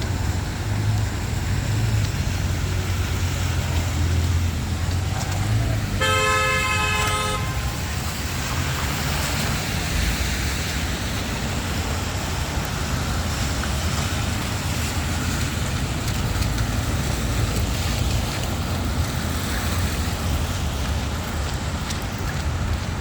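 Steady city street noise of passing traffic, with a vehicle horn sounding once for about a second and a half, some six seconds in.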